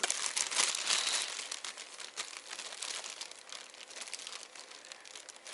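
Plastic bread bag crinkling as it is handled and slices of bread are pulled out, a busy run of fine crackles that fades off toward the end.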